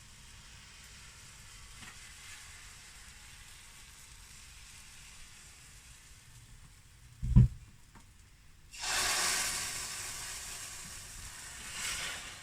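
Pancake batter frying in a hot pan: a loud sizzle starts suddenly about nine seconds in, fades slowly and swells again briefly near the end. A faint hiss runs before it, and a single sharp knock comes just before the sizzle.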